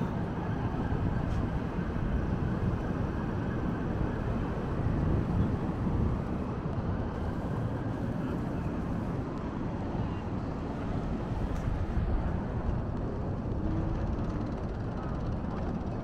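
Steady city street ambience, mostly the low, even rush of road traffic, with no single event standing out.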